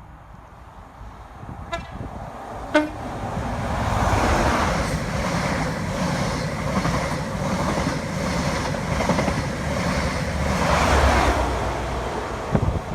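A train's horn giving two short blasts, followed by a train passing with a rumble and a regular clatter of wheels on the rails that drops away near the end.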